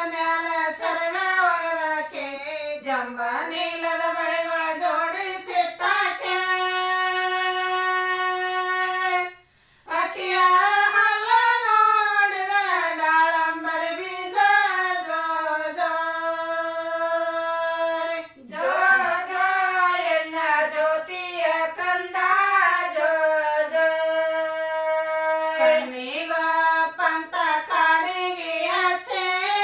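One high voice singing a devotional song without instruments, in flowing phrases with long held notes. It breaks off briefly twice, about nine and a half seconds in and again near eighteen seconds.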